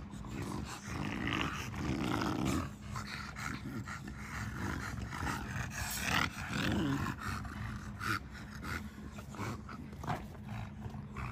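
American bully dogs growling low and throaty, louder about two seconds in and again around six to seven seconds.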